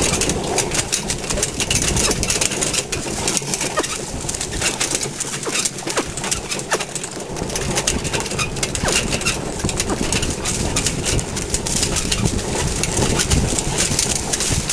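Pony-drawn wheelchair carriage jolting over a rutted track, with a dense, irregular run of clicks, knocks and rattles from the wheels and frame.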